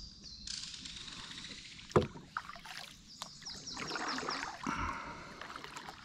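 Kayak paddle strokes swishing and splashing in the water, with a sharp knock about two seconds in and a few lighter knocks. A bird sings runs of quick descending high notes in the background.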